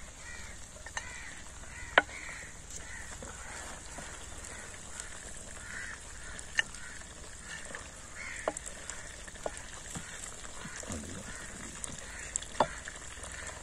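A wooden spoon scraping and knocking against a clay pot and plate as cooked mutton is ladled out, a few sharp clacks, the loudest about two seconds in and near the end. Birds call over and over in the background.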